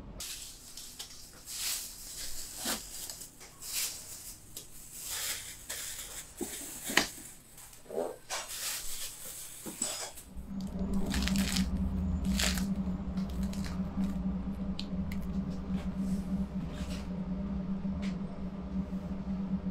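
Crisp-crusted bread being handled with gloved hands gives a scatter of light rustles and crackles. About halfway through, a steady low machine hum starts and holds, with an occasional crinkle of plastic bags over it.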